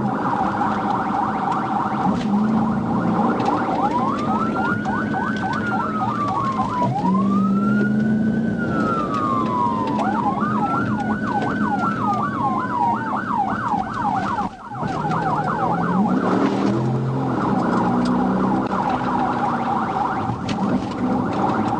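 Police sirens sounding through a pursuit, overlapping: a slow wail rising and falling over a few seconds at a time, and a rapid yelp of about four sweeps a second.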